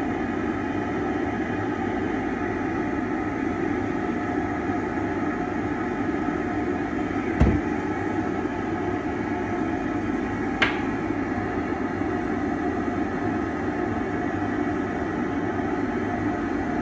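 Dental lab dust extraction box running steadily, its suction motor giving a constant whir. A thud about seven and a half seconds in and a sharp click about three seconds later.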